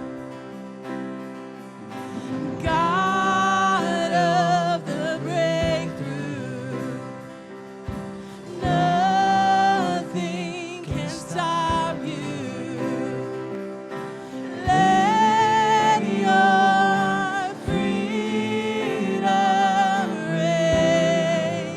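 Worship music: a singer holding long, wavering notes over steady sustained chords, in phrases of a few seconds each.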